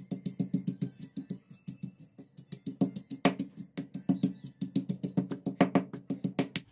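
Stone pestle pounding dried chillies and onion in a granite mortar: quick, steady knocks about six a second, some strokes heavier than others, stopping suddenly at the end.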